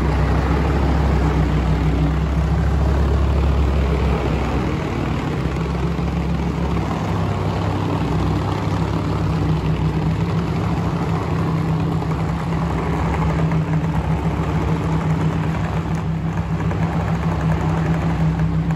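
Lamborghini Huracán Performante's 5.2-litre naturally aspirated V10 running at a steady idle.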